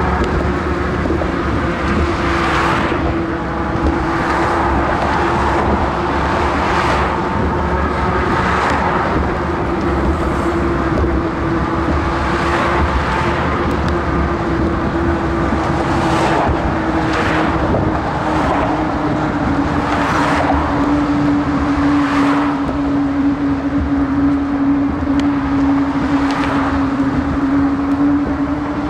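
Cars and trucks passing one after another in the bridge traffic lanes alongside, each swelling and fading every few seconds. Under them runs steady wind and road noise, with a constant low whine that drops slightly in pitch about two-thirds of the way through.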